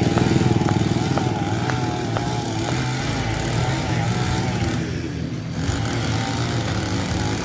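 Mitsubishi BD2F bulldozer's diesel engine running steadily, with sharp metallic clanks from the tracks about twice a second in the first half.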